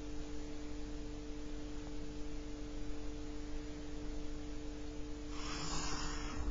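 A steady hum of two tones throughout, and near the end a pencil scratching a straight line along a plastic ruler on paper for about a second.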